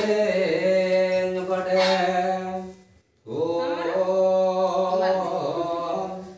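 A single voice chanting a Hindu devotional mantra, holding long, steady notes in two phrases with a short breath break about three seconds in.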